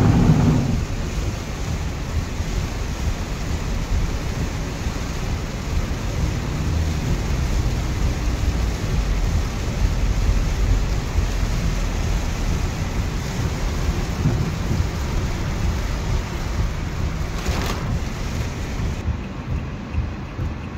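Heavy rain drumming on a car's roof and windscreen, heard from inside the cabin over the low rumble of the car driving on a wet road. There is a louder rush in the first second.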